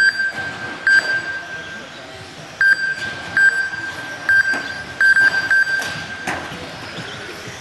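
Race lap-timing system beeping as RC touring cars cross the timing line: about ten high pings in the first six seconds, some in quick pairs. There is a sharp knock a little after six seconds in.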